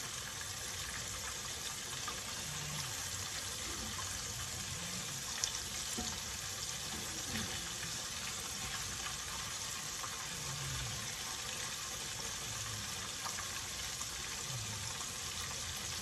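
Battered shrimp deep-frying in a pan of hot oil: a steady sizzle, with one sharp click about five seconds in.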